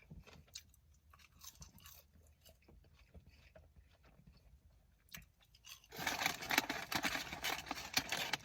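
A person chewing French fries, quiet small clicks at first, then a louder, dense crunching rustle starting about six seconds in.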